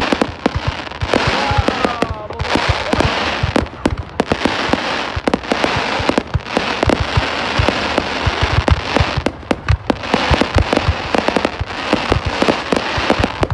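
Aerial fireworks display: a dense, irregular string of shell bursts and bangs with crackling between them.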